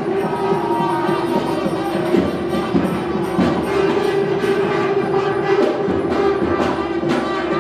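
South Indian temple procession music: a reed wind instrument, most likely a nadaswaram, playing a held, slowly moving melody over a steady drone, with frequent sharp drum strokes, most likely from a thavil.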